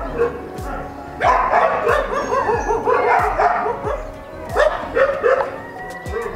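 Kombai dogs whining and yelping in repeated wavering cries, over background music with a steady beat.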